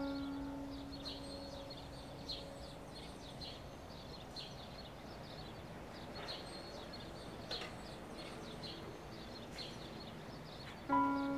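Steady background of short, high chirps repeating irregularly, as from outdoor night ambience. A single low, sustained musical note fades away over the first couple of seconds, and another is struck near the end.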